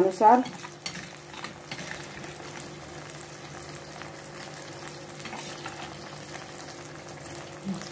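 Fish curry in mustard-paste gravy sizzling and bubbling steadily in a karahi, with a couple of light clicks and a faint steady hum underneath.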